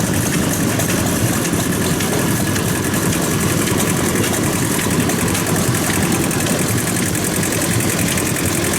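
Vintage engine running steadily with a fast, even beat.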